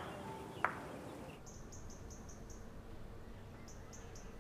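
A single sharp click, then faint, short, high chirps repeating about four or five times a second in two runs: background chirping of a small animal.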